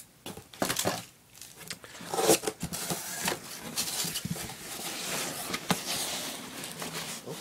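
Cardboard shipping box being opened: flaps knocking and scraping, loudest about two seconds in. Then hands handle the British PLCE rucksack packed inside, its fabric rustling against the box.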